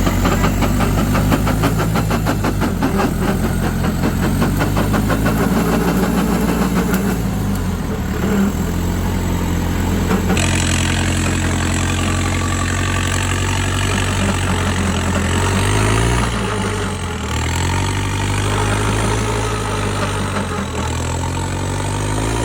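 Off-road 4x4's engine running and revving up and down under load, with rapid even pulsing in the first few seconds and an abrupt change in the sound about ten seconds in.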